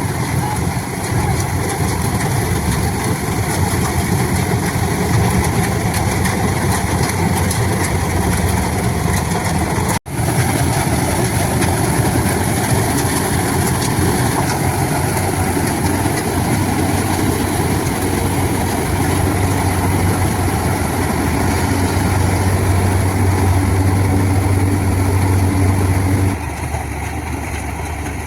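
John Deere combine harvester's diesel engine running steadily. The sound cuts out for an instant about ten seconds in, and the low drone falls away near the end.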